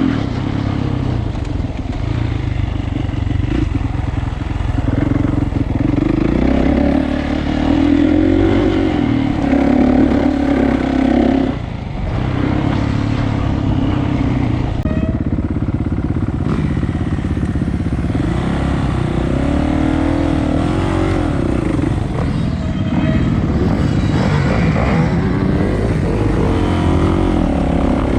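Dirt bike engine running under way, its pitch rising and falling as the throttle is worked, with a brief drop about twelve seconds in.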